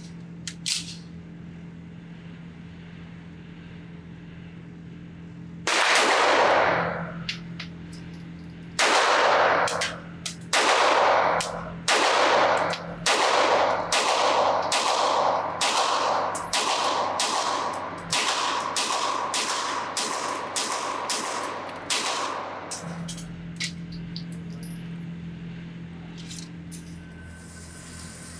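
Fowler Industries Vanta 9 Ported MTO, a 9mm 2011-style pistol, fired in a string of shots through one magazine, with no stoppage: the first few shots spaced a second or more apart, then a quicker steady pace of roughly one shot every half second to second. A steady low hum runs under the shots.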